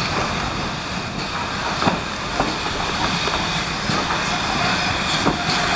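GWR Modified Hall 4-6-0 steam locomotive No. 6990 Witherslack Hall running slowly into a station with its train, steam hissing steadily and the wheels clicking sharply over rail joints and points several times.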